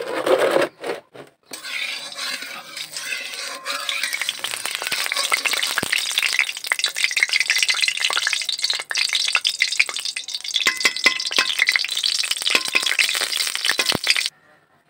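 Mustard oil sizzling and crackling as it heats in a metal kadai, a spatula stirring through it; the oil is coming up to frying heat. The crackle cuts off suddenly near the end.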